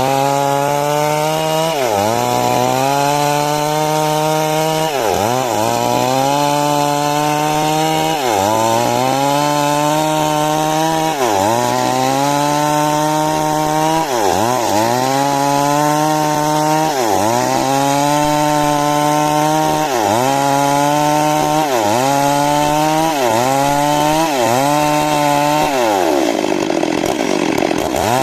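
Two-stroke 382 chainsaw cutting wood at high revs, its engine pitch dipping and climbing back about every three seconds. Near the end the revs sag lower for about two seconds before rising again.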